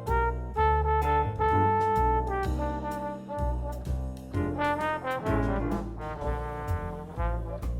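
Background music: a jazzy tune led by brass instruments over a bass line.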